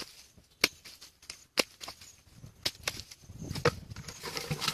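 A long-handled hoe chopping into wet mud and soil: four strikes about a second apart. It is followed near the end by wet sloshing and splashing as hands stir the muddy water.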